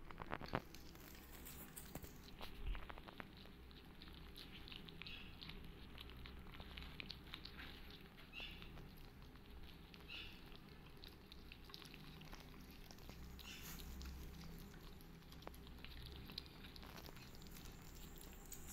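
Faint patter and scratching of small kittens moving about in a cardboard box, with scattered soft clicks.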